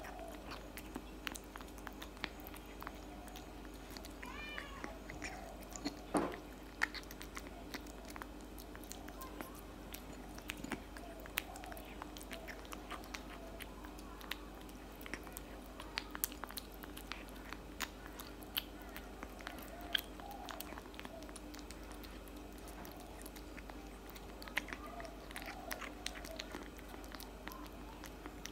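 A tabby kitten eating wet cat food from a plate: loud, irregular wet chewing and smacking, with sharper bites now and then.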